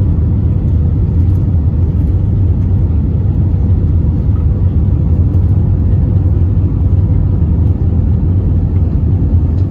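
Steady low rumble of an Airbus A320 heard from inside the passenger cabin on final approach just before touchdown, engines and airflow, with a faint steady whine above it.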